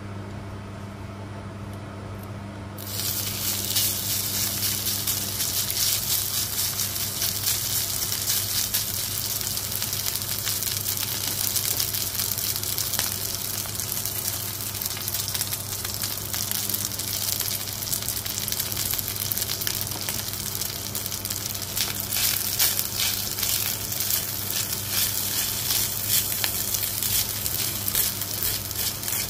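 Cooked rice frying in the hot lamb kofta fat left in the pan: a steady sizzle with crackles that starts about three seconds in as the rice goes in. Near the end a spatula stirs and tosses the rice, adding busier crackling. A steady low hum runs underneath.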